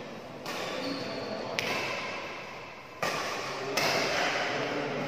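Badminton rally: rackets striking the shuttlecock in sharp hits, several times over a few seconds.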